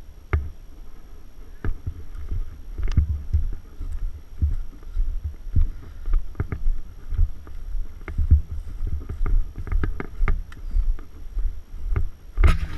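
Low, gusty rumble of wind and movement on a body-worn camera's microphone, with irregular knocks and clicks throughout.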